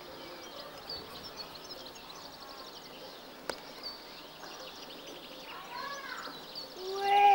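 Faint birds chirping in the garden over a low steady hum, with a single sharp click about halfway through. Near the end a person's voice calls out loudly on one rising-then-falling note.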